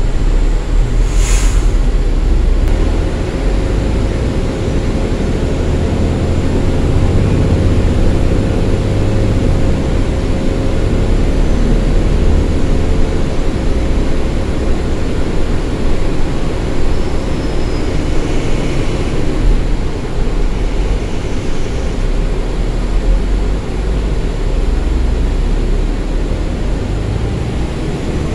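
Interior sound of a New Flyer city bus in motion: a steady low engine drone and road rumble. There is one short, sharp high burst about a second in, and a faint steady whine that stops about two-thirds of the way through.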